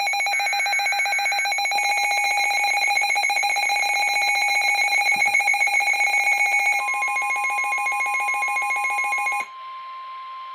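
Weather radio alert alarm: a shrill electronic tone pulsing rapidly, cutting off suddenly about nine and a half seconds in. About seven seconds in, the steady single-pitch NOAA Weather Radio warning tone starts and carries on over faint radio hiss, ahead of a new warning.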